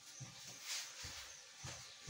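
Footsteps on a tiled floor, soft thuds about twice a second, with light rustling.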